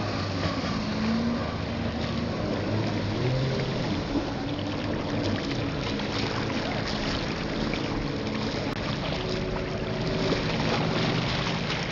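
Kawasaki ZXi 1100 jet ski's three-cylinder two-stroke engine running on the water, its pitch rising and falling as the throttle is worked, over a steady rush of spray.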